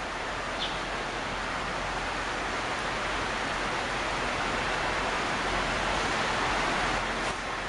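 A steady, even hiss of noise with no distinct events, a little stronger in the middle.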